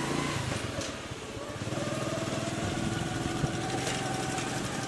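Motorcycle engine running steadily while riding, with a rapid low firing pulse.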